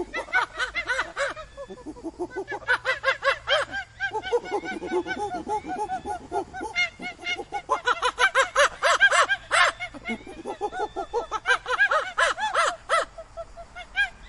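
Monkeys chattering: rapid runs of short, repeated calls in several bouts with brief pauses between.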